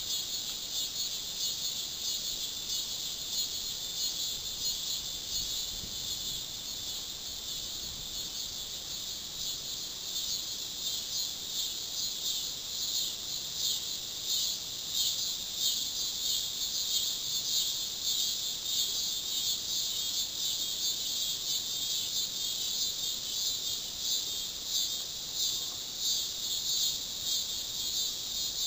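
Steady outdoor chorus of insects, a dense high-pitched shrilling that swells and fades a little but never stops.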